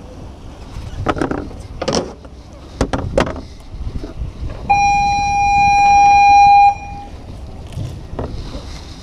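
A single steady horn blast lasting about two seconds, starting a little before the middle and cutting off abruptly. Before it come a few short knocks and handling sounds.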